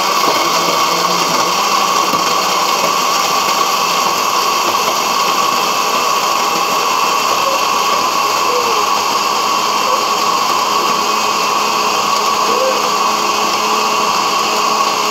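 Electric kitchen blender with a steel jar running steadily at full speed, grinding dates with milk into a shake, a loud even motor whine.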